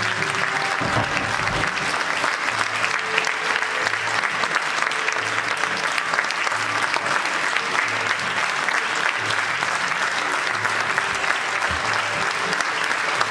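Audience applauding steadily, a dense spread of hand claps.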